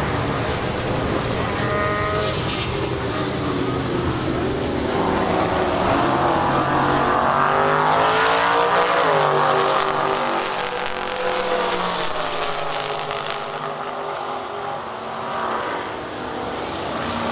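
Chevrolet drag car's engine at full throttle on a quarter-mile pass, rising in pitch as it accelerates down the strip and is loudest as it goes by. After that it falls in pitch and fades into the distance.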